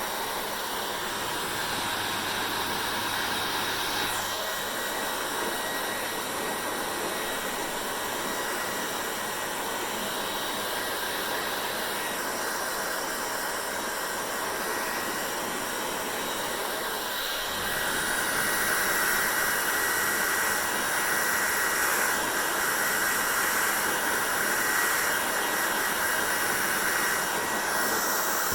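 Hair dryer running: a steady blowing rush with a faint whine. About 17 seconds in it gets louder and brighter and stays that way.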